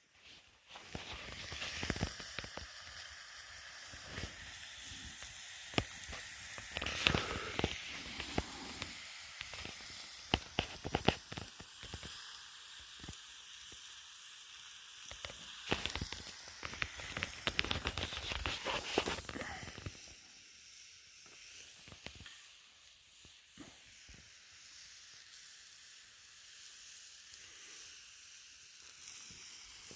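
Campfire crackling and hissing, with scattered sharp pops that are busiest in the first twenty seconds, then settling to a quieter hiss with fewer pops.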